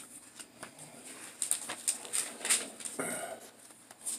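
Faint rustling and light ticks of hands handling something while a passage is looked up, clustered between about one and a half and two and a half seconds in, with a brief low murmur just after three seconds.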